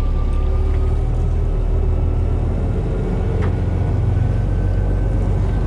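Engines of a large fishing head boat running steadily, a low rumble with a faint steady whine above it.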